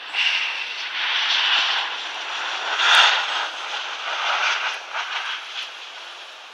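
Jet engines of a Ryanair airliner landing, a rushing noise that swells and eases, loudest about three seconds in.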